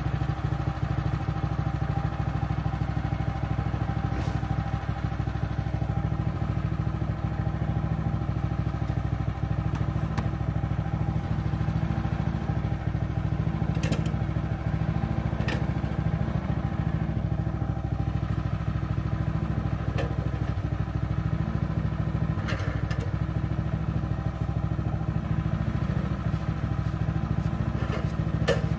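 Small gasoline engine of a Woodland Mills portable band sawmill running steadily at one speed, with a few sharp ticks now and then.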